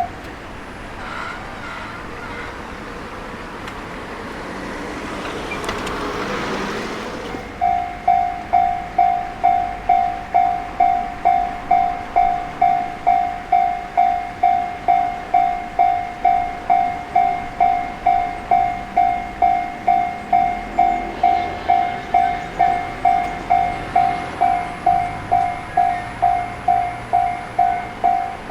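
Level-crossing warning alarm on the JR Gotemba Line ringing steadily, about two strikes a second, starting suddenly about seven seconds in. Before it, a train's rising rush of rail noise builds and cuts off.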